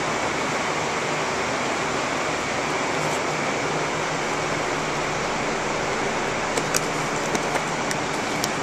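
Walk-in cooler's refrigeration fans running with a steady, even noise, with a few light plastic clicks near the end as a clear clamshell container is handled and opened.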